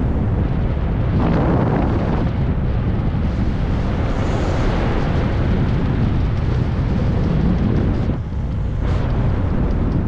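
Wind buffeting the microphone of a moving bicycle, mixed with the rumble of its tyres on a rough, gravel-strewn asphalt road. The noise is loud and steady, with a few brief surges.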